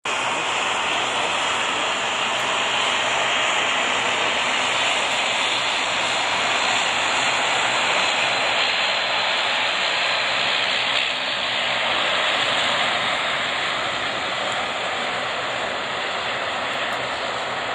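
Jet engines running at taxi power on an airport apron: a steady rushing hiss with a high whine, dipping briefly about eleven seconds in.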